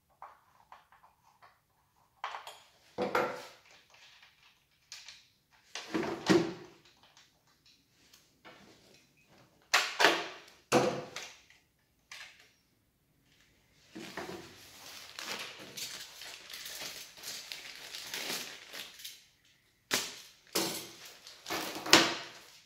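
Handling noises as the side cover, bar and chain come off a Husqvarna 445 II chainsaw on a wooden bench: a string of separate clunks and knocks of plastic and metal parts, with a stretch of rustling in the middle and a few sharp crinkles near the end.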